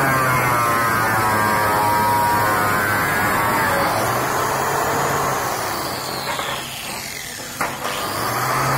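Electric angle grinder with a wire cup brush scouring a metal mesh grille, its motor whine wavering in pitch as the load changes. About six seconds in it eases off and winds down, with a sharp knock, then runs back up to full speed near the end.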